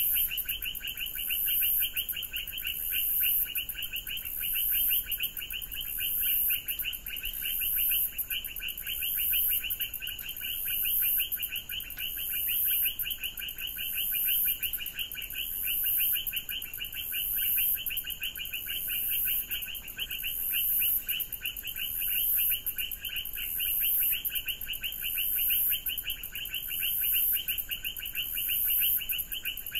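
Dense animal chorus: a steady, fast trilling with a shrill high layer that swells and fades about once a second.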